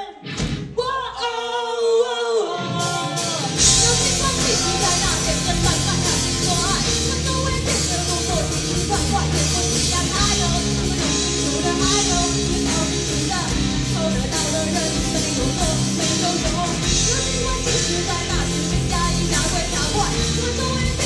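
Live rock band: a short unaccompanied vocal phrase, then drums, bass and guitars come in loud about three seconds in and the band plays on with singing over it.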